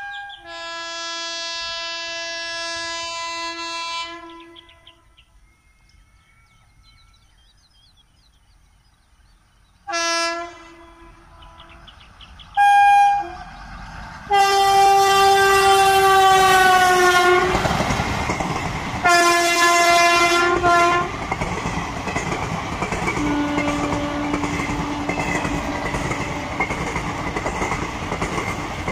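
WAP7 electric locomotive's horn blowing as it approaches: a long blast, two short ones, then a long blast that slides down in pitch near the end, and one more blast. Then the express's coaches run past with a steady rolling rail noise.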